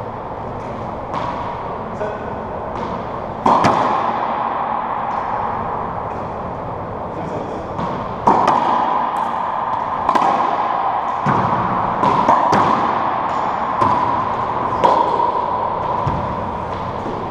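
Racquetball rally: the rubber ball smacked by racquets and rebounding off the court walls and floor, each hit ringing with echo in the enclosed court. A few lighter hits at first, a loud smack about three and a half seconds in, then a quick run of hits from about eight seconds on.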